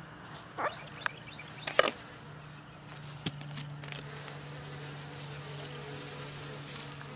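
Honeybees buzzing in an opened hive: a steady hum that grows louder about two seconds in. Three short knocks come from the wooden hive parts being handled in the first few seconds.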